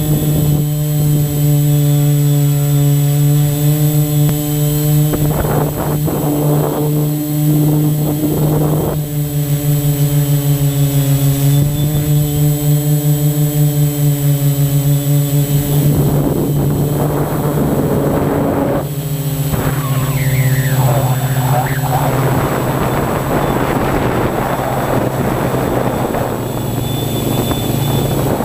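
Drone's propellers and motors humming steadily in flight, heard from the drone's own microphone, with a slight shift in pitch now and then. From a little past halfway a rushing noise grows over the hum.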